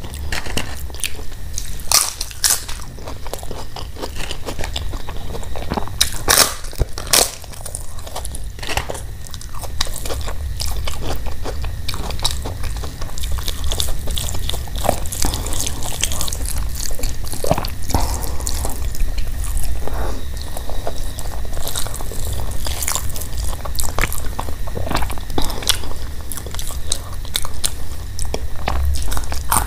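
Close-miked chewing and biting of crisp papad, with sharp crunches that are thickest in the first several seconds. Chewing and smaller crackles go on after that.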